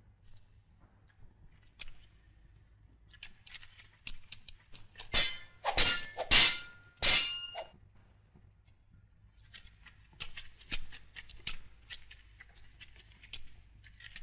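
Swords clashing in a film fight soundtrack: scattered light clicks and knocks, with a quick run of loud metallic clangs about five to seven and a half seconds in, each leaving a short ring.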